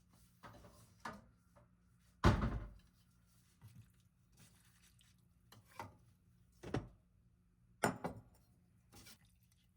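Scattered knocks and thuds, about seven of them at uneven intervals, the loudest about two seconds in, over a faint steady low hum.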